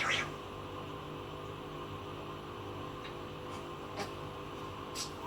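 Steady low hum in a quiet room, with three faint short clicks spread over the last few seconds. A brief raspy scratching sound trails off right at the start.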